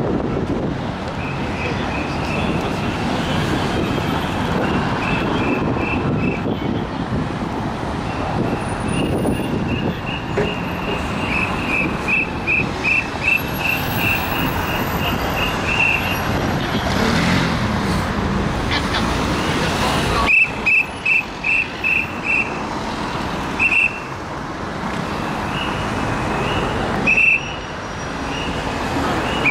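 Road traffic at a busy city junction: cars, vans and an articulated city bus running past close by. Runs of rapid high-pitched pips, several a second, sound over the traffic through much of it.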